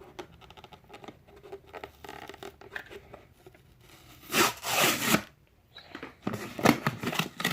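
Plastic supplement tub being opened: faint scratching and handling, then a loud tearing of the tub's seal about four and a half seconds in, followed by more short rips and crackles near the end.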